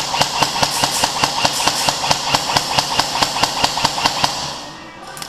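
Airsoft gun firing a rapid string of shots, about seven a second, for about four and a half seconds before it stops.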